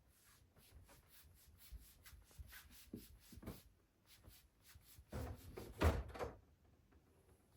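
Light clicks and taps of household things being handled, with a few louder knocks about five seconds in.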